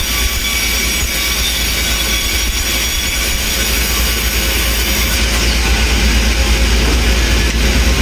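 Sawmill machinery running steadily, with a deep rumble under a high, hissing squeal; it grows a little louder about five seconds in.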